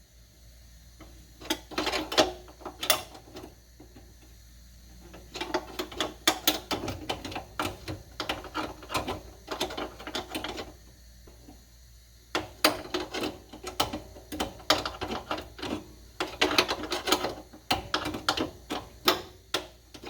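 Hand ratchet clicking in bursts of rapid strokes with short pauses between, backing out a long hood-latch screw.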